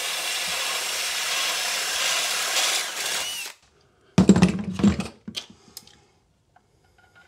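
Cordless drill boring a hole up through the underside of a scroll saw's deck, running steadily for about three and a half seconds and then stopping. About a second later come a few loud knocks.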